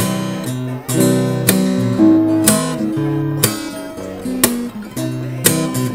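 Seizi Nagoya acoustic guitar strummed through a series of chords, about one stroke a second, each chord left to ring. It is being tried fresh out of the box and sounds more or less in tune.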